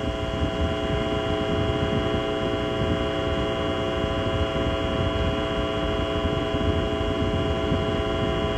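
Saturn V's five F-1 engines heard in flight about half a minute after liftoff: a steady low rumble, with a steady whine of several pitches held above it.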